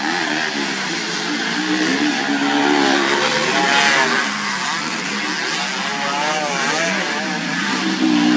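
Several racing motorcycles with standard underbone ('bebek') engines revving hard on a dirt grasstrack, their pitch rising and falling with throttle and gear changes. They grow loudest a little under halfway through as the bikes pass close.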